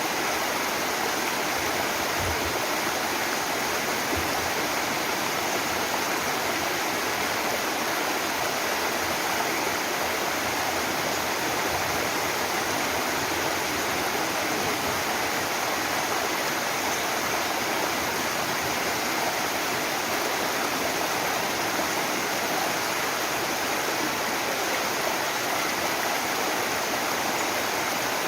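Mountain waterfall heard close up: water falling and splashing in a steady, even rush.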